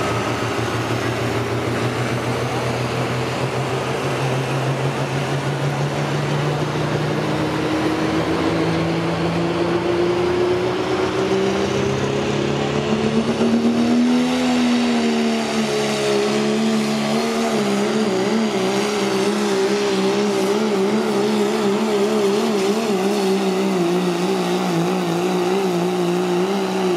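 Diesel pickup pulling truck's engine at full power against a weight-transfer sled. Its pitch climbs steadily over the first half, then wobbles up and down through the rest of the pull.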